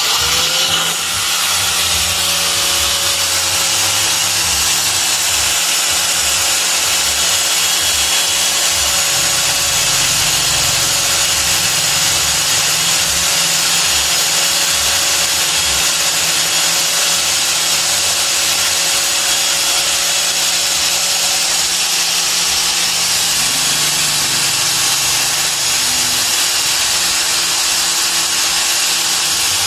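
Makita angle grinder with a felt buffing wheel, switched on and spinning up at the start, then running steadily while a plastic-encased medal is held against the wheel and buffed to a shine.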